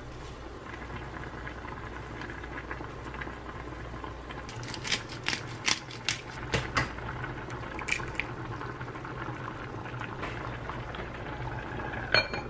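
Soft tofu stew bubbling steadily at a boil in a pot on the stove. A string of sharp clicks comes through the middle, and near the end a glass lid clinks down onto the pot.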